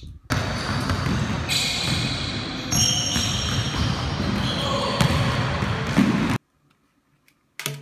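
Echoing sound of an indoor basketball gym as a basketball is shot at the hoop and bounces on the court. It is loud and dense throughout, then cuts off abruptly about six seconds in.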